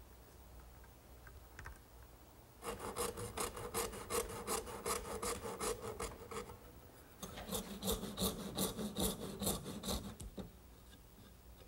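Handsaw cutting into the end of a pine workpiece in quick back-and-forth strokes. There are two bouts of sawing, one starting about two and a half seconds in and one about seven seconds in, with a short pause between them.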